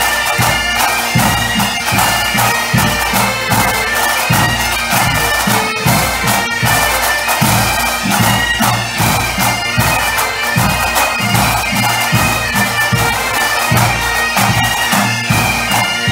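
A massed pipe band: many bagpipes playing a tune together over their steady drones, with drums beating time at about two beats a second.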